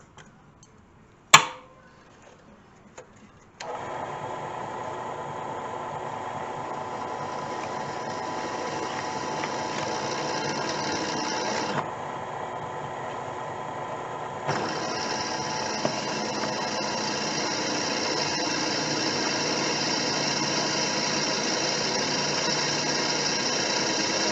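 A sharp click, then a drill press starting about three and a half seconds in and running steadily as a Black Widow twist bit cuts into a metal flange. The higher cutting sound drops out for a couple of seconds midway, then returns.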